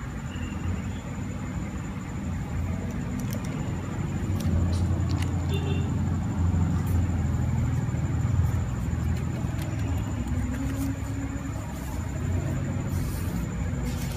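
A steady low rumble, louder from about four seconds in and easing off later, with a few faint clicks over it.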